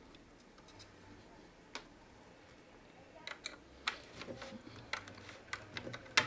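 Small screwdriver backing out a motherboard screw: faint, irregular clicks and ticks. There is one click near the start of the second second, and the clicks come more often in the second half.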